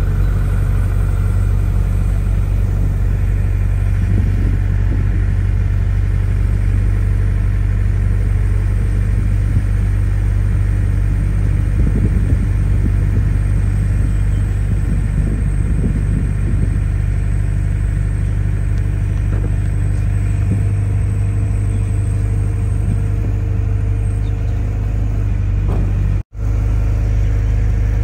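Steady low engine rumble and hum, heard from inside a car on a river ferry crossing. The sound drops out abruptly for a moment near the end.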